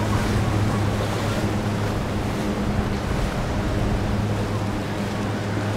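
Boat engine running with a steady low hum, under the wash of water and wind noise on the microphone.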